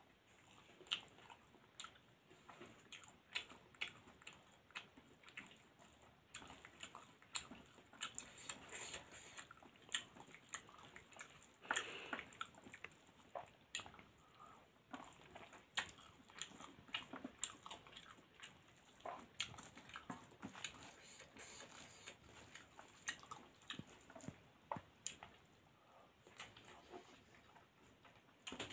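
Close-up eating sounds of rice and dal eaten by hand: chewing with many short, wet mouth clicks, and fingers squishing and mixing the rice on a steel plate.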